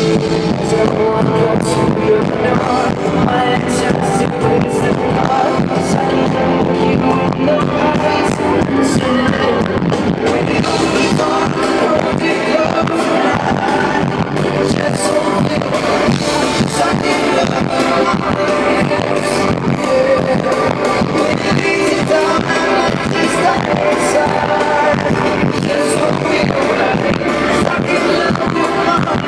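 Live pop band playing a song, the drum kit beating steadily under guitar and bass, with voices singing.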